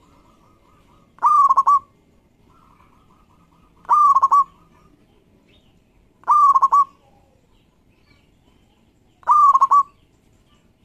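Zebra dove (local perkutut) singing: four loud cooing phrases about every two to three seconds, each a short, quick run of notes. Faint, rapid quieter notes come between them.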